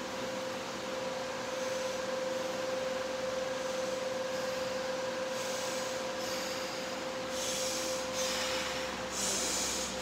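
A steady machine hum held at one pitch over a background hiss, like a fan or air-handling unit running. From about halfway through it is joined by several short hissy sounds that come and go.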